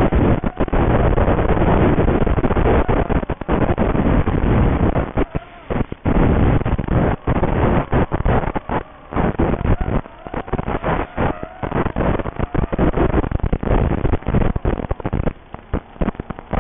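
Rushing noise on a racing quadcopter's analog FPV video-link audio, cutting out many times in quick dropouts that grow more frequent toward the end. Faint rising and falling whines run through the noise.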